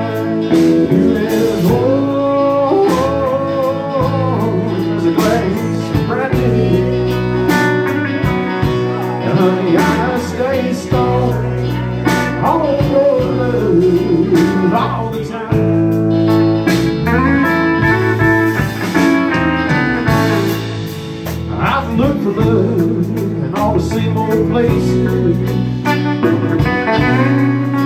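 Live band playing with electric guitars, electric bass and a drum kit.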